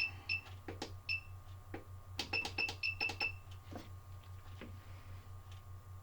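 Quick electronic beeps at one high pitch in short runs, over a steady electrical hum, with scattered light clicks and taps.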